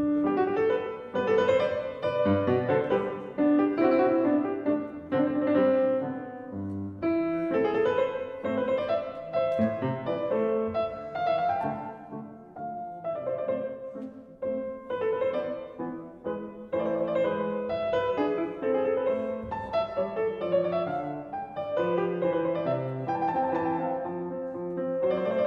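Background piano music, a gentle classical-style piece played as a soundtrack.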